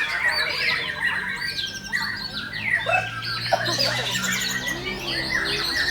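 White-rumped shamas singing in fast, varied phrases of whistles, chirps and harsh squawks, several birds overlapping at once. A steady low hum runs underneath.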